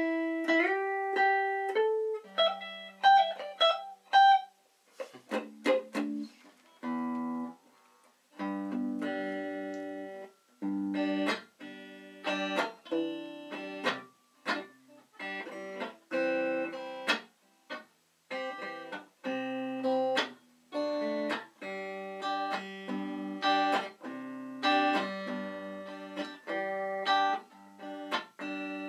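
Small semi-hollow electric guitar of the Gibson CS-356 type being played: a few held notes at first, then a long run of short chords struck one after another, each cut off briefly before the next.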